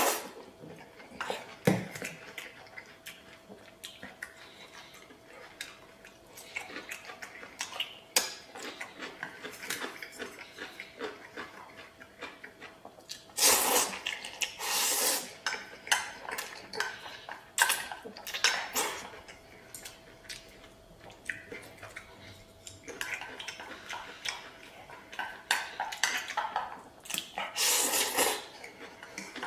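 Chopsticks clicking and scraping against a stainless steel bowl while eating stir-fried noodles, with two longer, louder slurps of noodles, one about halfway through and one near the end.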